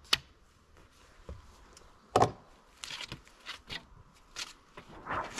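A roll of thin metal roof flashing being unwrapped and unrolled: sharp crinkling clicks of the sheet, the loudest about two seconds in, followed by a run of lighter ticks and rustling that builds near the end.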